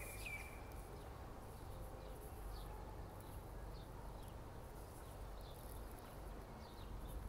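Faint scattered short high chirps of small birds over a low steady rumble of background noise.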